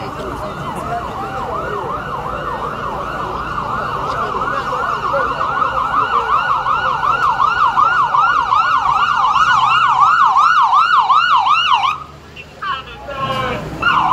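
Police car siren in fast yelp mode, wailing up and down about three times a second. It grows louder and then cuts off suddenly about twelve seconds in.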